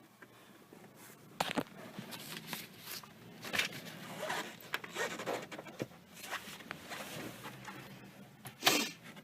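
Scattered small clicks and brief rustles of handling, with one louder rustle near the end; the engine is not running.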